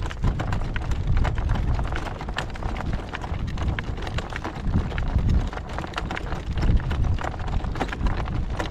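Hoofbeats of a driven horse and the clicks and rattle of the cart and harness it pulls, over a steady low rumble.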